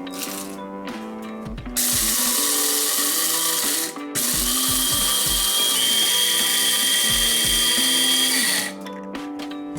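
KRUPS electric spice and coffee grinder's blade motor running in two pulses: about two seconds, a brief stop, then about four and a half seconds. The second run carries a high whine that steps up slightly midway. Background music plays underneath.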